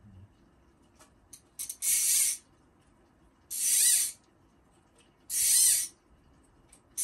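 Fishing line being pulled off a rod and reel by hand in repeated strokes, each pull a short zipping hiss with a wavering pitch from the line running off the spool. Three pulls, about one every second and a half to two seconds, with a few light clicks before the first.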